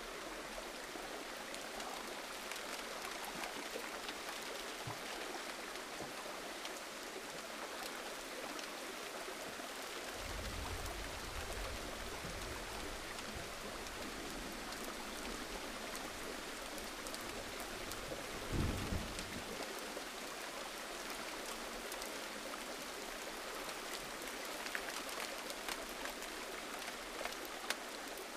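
Steady gentle rain with scattered individual drops striking a surface. A low rumble runs for several seconds in the middle, and a short thump lands a little past halfway.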